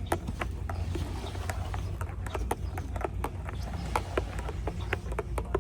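Irregular hollow knocks and clicks, several a second, over a steady low rumble.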